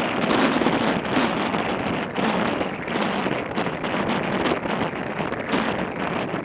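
Wind buffeting the microphone of a moving motorcycle, a steady rush with rapid gusty flutter over the road and riding noise.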